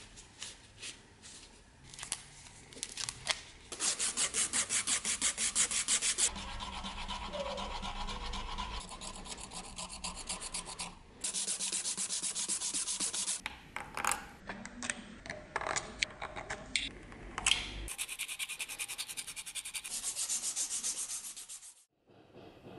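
A sandpaper strip pulled rapidly back and forth around a turned beech chisel handle, shoe-shine style, rasping in fast regular strokes. The sanding comes in several stretches that stop and start abruptly, with scattered clicks and knocks between them.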